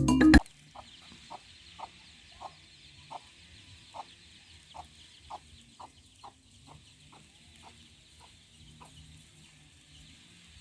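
Music stops half a second in. A chicken then clucks in a steady run of short calls, about two a second, that thin out near the end, over a faint high hiss.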